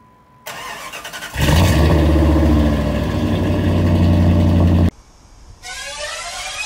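An engine starting, then running loudly and steadily for about three and a half seconds before it cuts off abruptly. Rising sweeping tones begin near the end.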